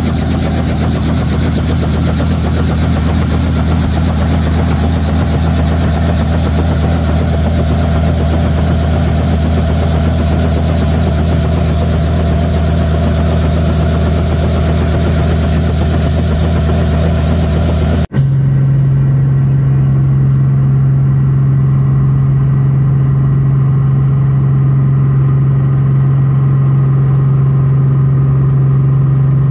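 Robinson R44 Raven II helicopter running on the ground, its Lycoming six-cylinder piston engine and rotor making a loud, steady noise heard from just outside the aircraft. After a sudden cut about two-thirds through, the same helicopter is heard from inside the cabin as a steady, deeper drone.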